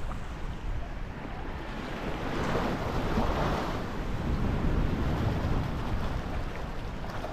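Wind rushing across the microphone over choppy open water, a steady noise that swells a little in the middle.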